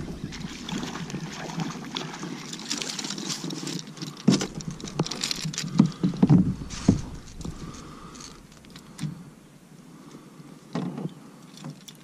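Splashes, knocks and rattles as a hooked speckled trout is landed by hand into a plastic fishing kayak; the loudest thumps come in the middle, then only a few scattered knocks.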